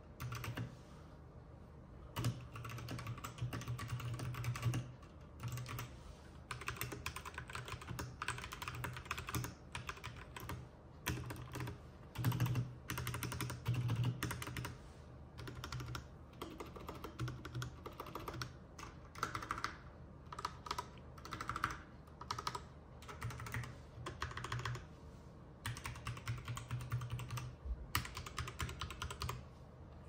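Fast typing on RK61 mechanical keyboards, in bursts of rapid key clicks with short pauses between them: first on the brown-switch board, later on the red-switch board.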